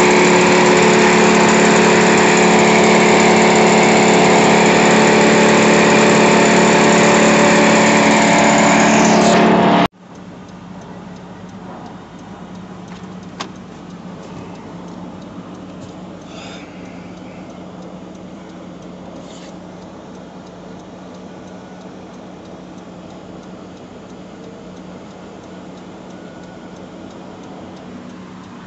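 Vermeer BC1000 brush chipper's engine running loud and steady. About ten seconds in it cuts off abruptly to a much quieter steady hum of a vehicle engine idling, heard from inside the cab.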